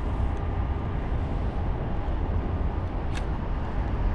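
Steady low outdoor rumble, the kind wind makes on a microphone, with one sharp click about three seconds in.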